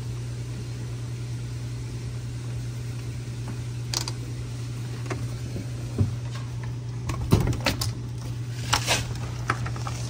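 Refrigerator compressor running with a steady low hum, on a sealed system that has lost its refrigerant charge. A few sharp knocks and clicks of handling come over it from about four seconds in, the loudest about seven seconds in.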